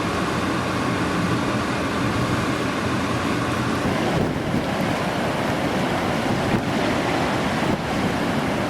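Hurricane wind buffeting the microphone over heavy storm surf: a steady, loud rush of noise with no breaks.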